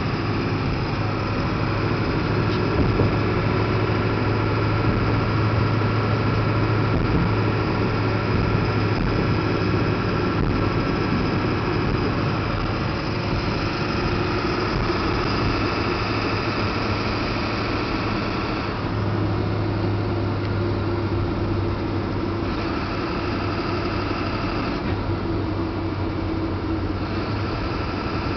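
Ford 7.3-litre V8 diesel truck engine running while driving, a steady low drone with a broad mechanical clatter above it. In the last third the higher part of the sound drops away and returns a few times, as with throttle coming on and off.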